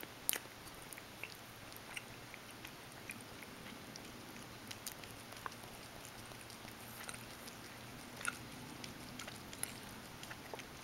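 A cat licking and chewing a soft piece of Twinkie held in the fingers: faint, irregular little wet clicks and smacks, with one sharper click about a third of a second in.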